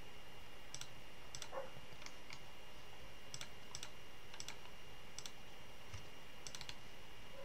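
Computer mouse clicking irregularly, about a dozen sharp clicks, several in quick pairs, while layers are selected one after another in animation software. A faint steady high whine runs underneath.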